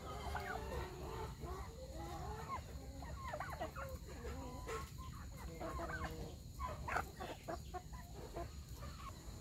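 Farmyard fowl clucking, with many short calls one after another, fairly quiet.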